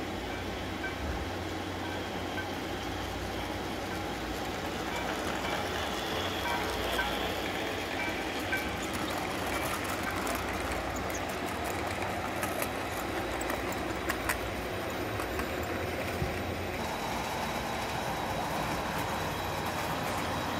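Model passenger train running on the layout track: a steady rumble of the cars' wheels on the rails, with scattered light clicks over rail joints around the middle.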